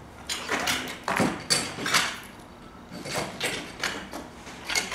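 Hands rummaging in a cardboard box of metal hardware: cardboard rustling and scraping with irregular knocks and clatter of the parts inside, in two bursts.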